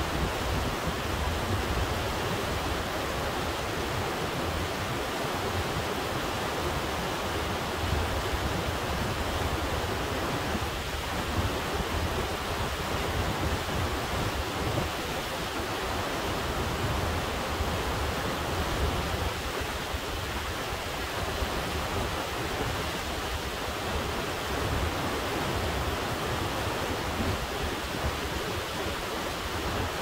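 Glacier-fed Kennicott River running: a steady, even rush of water with a strong low rumble underneath.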